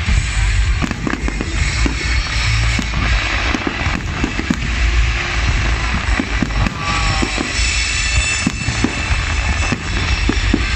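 Fireworks display going off: a rapid run of bangs and crackling bursts over a deep rumble, with music playing loudly alongside.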